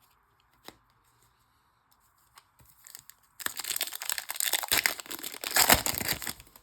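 A trading card pack's wrapper being torn open and crinkled: a few light clicks, then about three seconds of dense crackling starting about three and a half seconds in.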